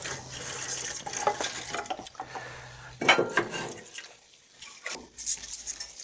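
Split firewood logs being pulled from a stacked woodpile and laid into a fireplace firebox: rustling and scraping of bark and wood, with a few knocks of log on log, the sharpest about three seconds in.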